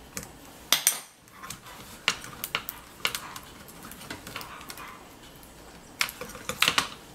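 Sharp metallic clicks and light clattering in a few short clusters, from hands and wire knocking against a stainless-steel light tray lined with LED strips while it is being wired.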